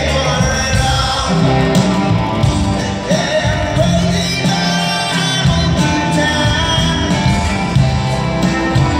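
Live rock band playing electric guitars, drums and keyboards, with singing, heard from the audience in a large arena hall.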